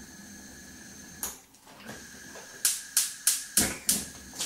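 Gas hob's spark igniter clicking as the burner is lit: one click about a second in, then a quick run of clicks about three a second near the end while the burner is slow to catch.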